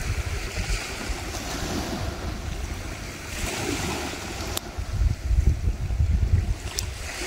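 Sea surf washing onto the beach, with wind buffeting the microphone in gusts that grow heavier in the second half. Two brief faint clicks sound about halfway through and near the end.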